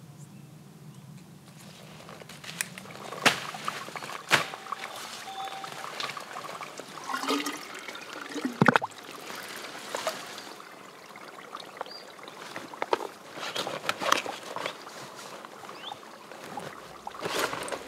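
Water trickling and pouring as a soft plastic water bottle is filled by hand, with several sharp clicks and knocks of the bottle being handled.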